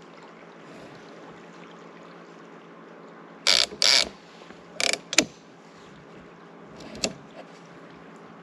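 Catfish reel's line-out clicker ratcheting in five short bursts, starting a few seconds in, as a fish nibbling the live bait pulls line off in spurts.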